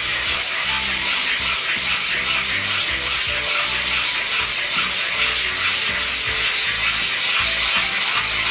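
Wet Naniwa Chosera 1000 waterstone being lapped flat: a steady gritty scraping of abrasive on abrasive, stroke after stroke, wearing down the dished middle of the stone.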